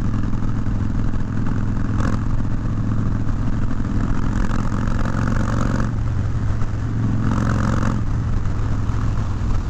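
Cruiser motorcycle's engine running steadily while riding at a constant cruising speed, with no change in pitch.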